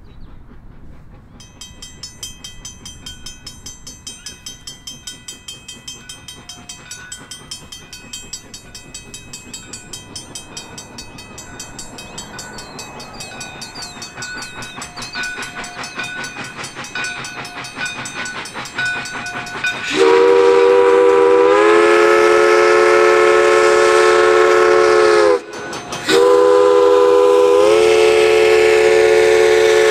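A 4-4-0 steam locomotive approaching, its rhythmic running sound growing steadily louder. About two-thirds of the way in, it sounds its steam whistle, a loud chord of several tones, in two long blasts with a short break between them.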